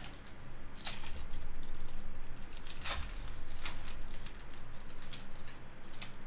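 Foil-lined wrapper of a Topps baseball card pack crinkling as it is torn open and peeled off the cards, in a few short, sharp crackles.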